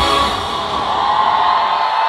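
Live audience cheering, with high-pitched whoops and screams, as the band's last chord dies away within the first half second at the end of a song.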